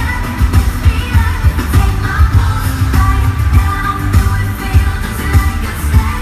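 Live pop performance by a girl group: voices singing over a loud backing track with a heavy, steady bass beat.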